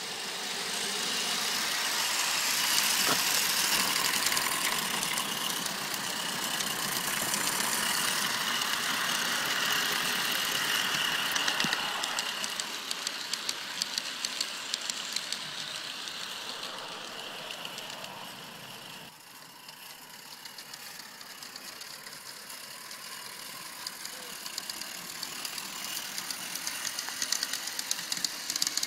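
Small live steam garden-railway locomotive running with its log train, a steady hissing chuff with rattling and ticking from the wheels and wagons. It is loudest during the first dozen seconds as it passes close, then grows quieter and drops suddenly about 19 seconds in.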